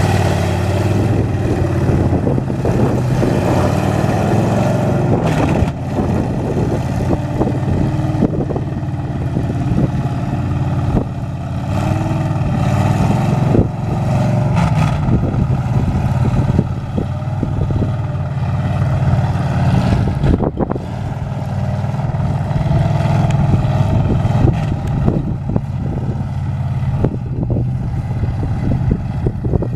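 Lifted monster truck's engine running and revving as the truck drives over rough ground, its pitch rising and falling with the throttle.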